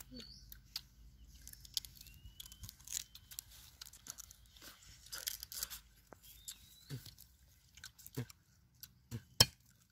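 Sugarcane being bitten and chewed: the fibrous rind tearing and crunching between the teeth, with a few sharper cracks in the second half.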